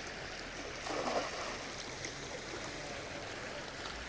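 River water flowing steadily, with a brief louder sound about a second in.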